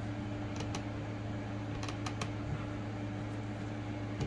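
A few light clicks of small plastic toy-crib parts being handled and pressed together, mostly in the first half, over a steady low hum.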